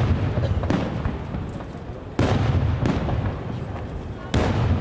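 Aerial firework shells bursting overhead: a lighter bang about a second in, then two loud bangs about two seconds apart, each followed by a rumbling echo that fades away.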